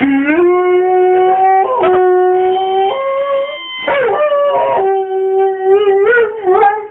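Rhodesian Ridgeback howling in several long, drawn-out notes that step up and down in pitch, with short breaks about two and four seconds in.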